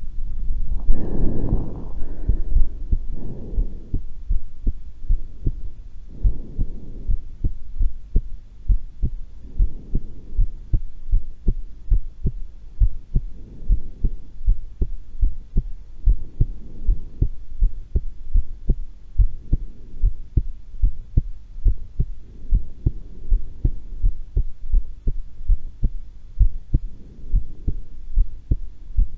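A woman's heartbeat at rest, a steady, regular train of low lub-dub thumps. A louder rushing noise rises over the beats about a second in and fades within a couple of seconds.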